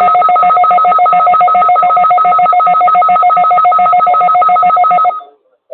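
National Weather Service weather radio warning alarm tone broadcast over a weather radio receiver during its weekly test. It is a loud, steady alarm with two pitches and a fast, even pulsing, and it cuts off about five seconds in.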